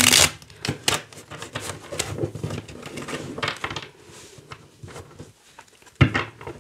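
Tarot cards shuffled by hand: a quick, irregular run of light card clicks and flicks, with one louder knock near the end.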